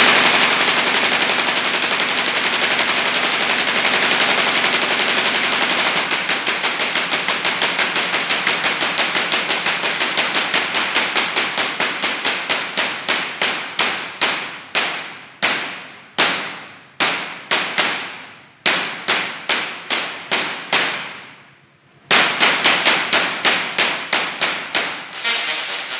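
Musical Tesla coil's spark discharges, driven from a drum machine. For about six seconds they make a dense, rapid crackling buzz. Then comes a fast train of sharp pulses, each fading out, that slows and spreads apart, stops for about a second near the end, and starts again fast.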